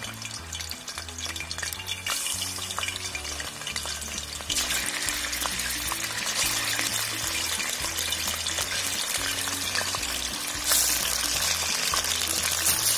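Raw chicken pieces frying in hot oil in a wide steel pan, sizzling. The sizzle grows louder in two steps, about four and a half seconds in and again near eleven seconds, as more pieces go into the oil.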